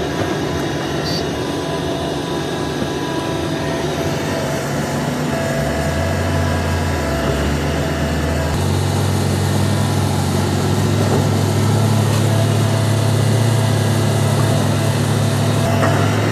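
Diesel engine of a Hitachi ZAXIS 350H excavator running steadily while working, with a deeper, stronger hum building about halfway through as the load increases.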